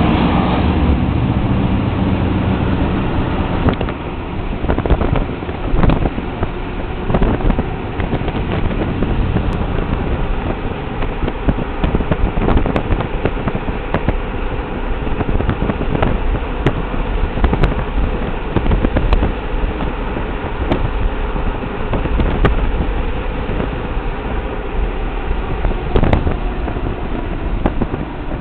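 A car driving along a road, heard from inside: steady engine and road noise with irregular sharp knocks and thumps throughout.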